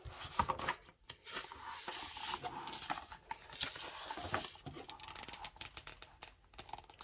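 Hardcover picture book being opened and its pages turned and smoothed flat by hand: paper rustling and brushing, with soft taps and clicks from the board covers and pages.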